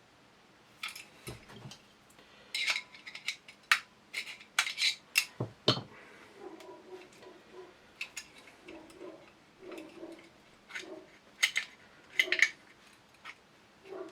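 Small steel shotgun parts and tools clicking and clinking as they are handled and fitted together in the Sjogren's receiver: irregular sharp taps, with a cluster of louder clicks in the first half and a few more near the end.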